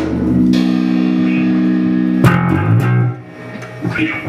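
Instrumental song intro on electric guitar and bass. One chord rings out, then a new chord is struck about two seconds in, with a moving bass line under it.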